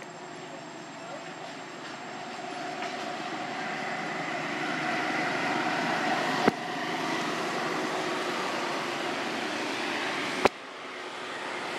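Steady drone of a passing motor vehicle that grows louder over the first few seconds. It is broken by two sharp clicks about four seconds apart.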